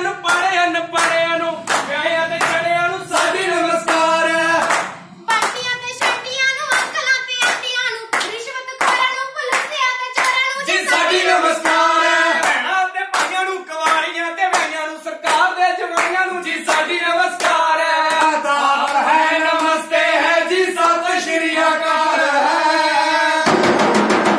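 A group of performers singing a chant together to a steady beat of hand claps, about one and a half to two claps a second. The singing breaks off briefly about five seconds in, and near the end a louder, denser noise takes over.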